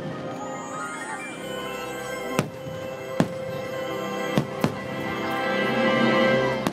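Fireworks show soundtrack music over the park's loudspeakers, rising in level toward the end, with four sharp firework bangs cutting through it: one about two and a half seconds in, another near three seconds, and a quick pair just past four seconds.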